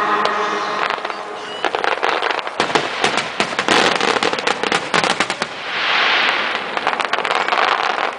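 Star mine fireworks bursting and crackling: many sharp pops in quick irregular succession, with a denser stretch of crackle about six seconds in.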